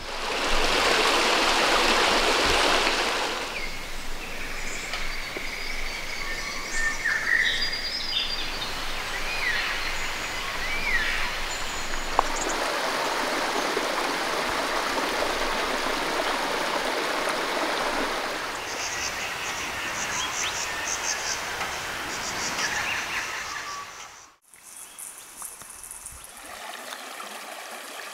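Creek water running steadily, louder in the first few seconds, with a few short bird chirps partway through. The sound cuts off abruptly near the end and carries on fainter.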